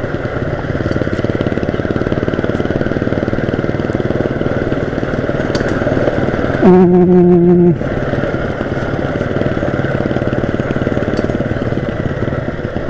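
Small motorcycle engine running steadily while riding over a rocky gravel track. Midway, a steady tone about a second long sounds over it and is the loudest moment.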